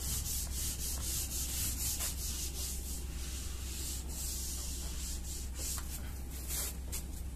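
Whiteboard duster rubbing over a whiteboard in repeated quick wiping strokes, erasing the marker writing.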